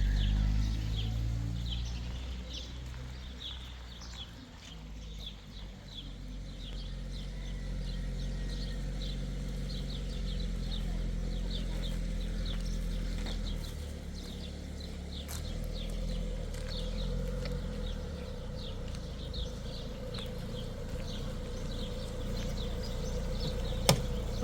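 A small bird chirping over and over, a few short high chirps a second, over a low steady rumble. A single sharp click near the end.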